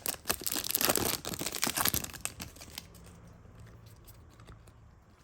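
Foil wrapper of a Pokémon TCG booster pack being torn open and crinkled, crackling loudly for about three seconds before fading to a faint hum.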